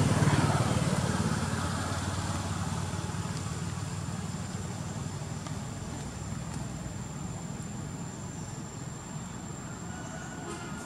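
A motor vehicle going by, its engine and road noise fading steadily away. A thin, steady high-pitched tone runs underneath.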